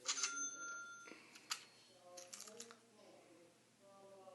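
A short ringing chime with a few clear tones, then a single sharp click about a second and a half in and a quick run of light clicks a second later.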